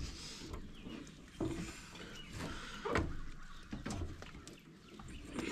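Faint rustling and a few light knocks as a small propane cylinder is twisted off a portable grill by hands wrapped in a sweatshirt.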